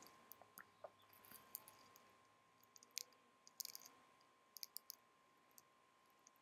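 Near silence: faint room tone with a thin steady tone and a few soft, scattered clicks, some in quick groups of two or three.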